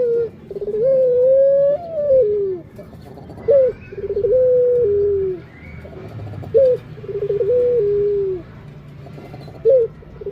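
Ringneck dove (puter) cooing over and over: each phrase is a short sharp note followed by a long rolling coo that drops in pitch, repeated about every three seconds.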